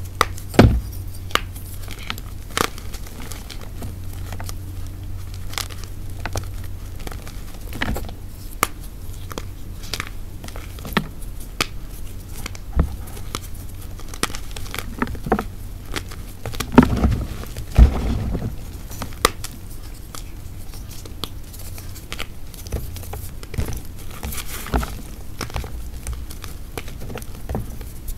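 Dried hearts of Ader gym chalk being crushed, giving a dry, irregular crackling and crunching with scattered sharp snaps. The loudest snaps come about two-thirds of the way through.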